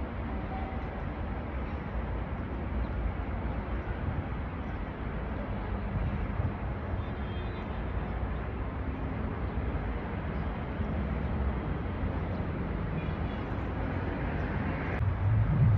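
Steady low rumbling outdoor background noise, with a brief louder low rumble near the end.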